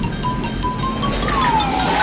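Cartoon soundtrack music over a low, steady vehicle engine rumble. A thin whistling tone steps slightly upward, then slides down in pitch through the second half.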